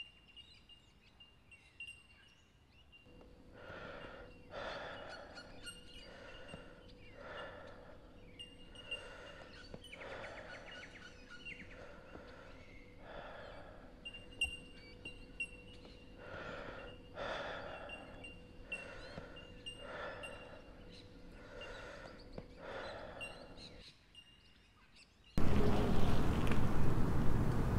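Birds chirp, then a cyclist breathes hard about once a second as he pedals uphill. Near the end a sudden loud rush of noise comes in as the bicycle passes close.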